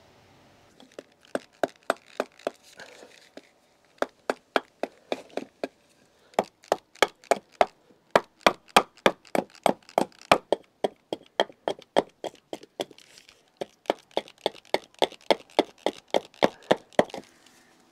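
A blade chopping into a wooden kuksa blank while roughing it into shape: sharp chopping strikes in quick runs of a few seconds, with short pauses between runs.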